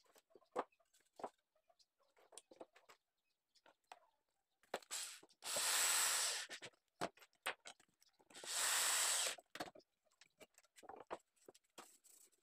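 Electric drill driving screws into pre-drilled wooden pieces: two runs of about a second each, a few seconds apart. Scattered knocks and clicks of the wood pieces being handled on the bench come before and after.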